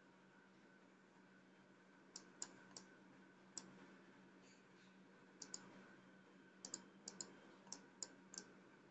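Faint, irregular small clicks, about a dozen scattered from about two seconds in, over a near-silent room with a faint steady hum.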